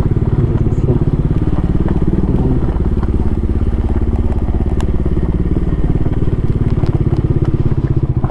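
Motorcycle engine running at low speed with a fast, even pulsing beat. Scattered light clicks sound over it.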